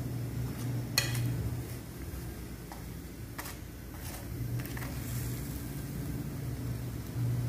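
Metal spatula clinking and scraping on the pan as a frying aloo paratha is pressed and turned. There is a sharp clink about a second in and a few lighter ones a couple of seconds later, over a steady low hum.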